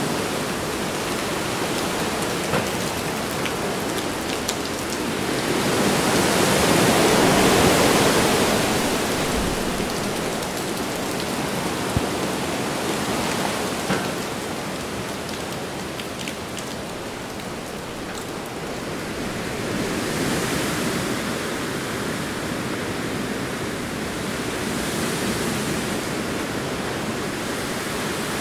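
Hurricane Irma's heavy rain and gusting wind, a dense steady rush that swells with the gusts, strongest about seven seconds in and again near the end. A few sharp ticks sound through it.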